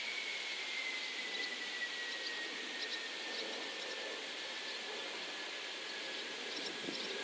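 Jet engines of a Boeing 747-400 coming in to land: a high whine slowly falling in pitch over a steady rushing noise.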